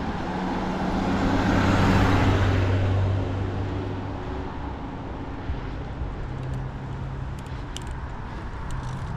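A car driving past: engine and tyre noise swell to a peak about two seconds in and fade over the next couple of seconds, leaving steady background road noise.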